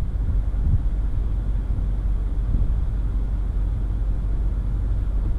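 Steady low engine rumble of an off-road vehicle creeping slowly along a rocky trail, picked up by a camera mounted on its hood.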